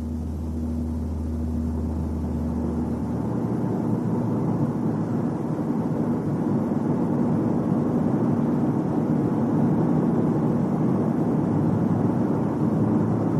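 Car being driven, with a steady mix of road and engine noise that grows slightly louder. A strong low hum stops about three seconds in.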